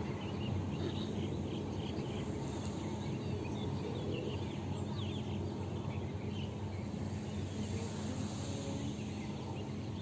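Outdoor ambience: many short high chirps from small birds scattered over a steady low hum.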